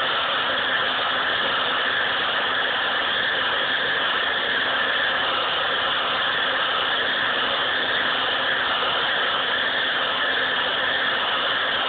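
Hair dryer running steadily: an even rush of blown air with a faint low motor hum under it.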